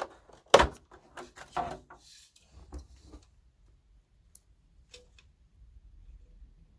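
Clicks and knocks from the tower speaker's cabinet being handled and pried at to free the front panel: one sharp click about half a second in, a few more knocks over the next second and a half, then faint scattered ticks.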